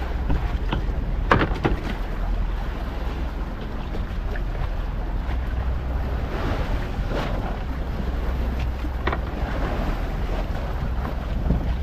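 Wind buffeting the microphone over choppy sea, with waves washing against a wooden outrigger fishing boat. A few short knocks come about a second in and again near the end.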